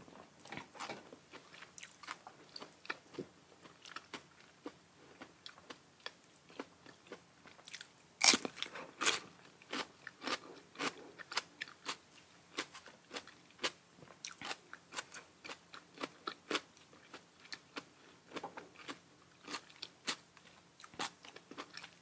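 Close-miked eating: a person biting and chewing raw oysters with fresh leafy shoots, with wet mouth clicks and crisp crunches throughout. The loudest crunches come about eight seconds in.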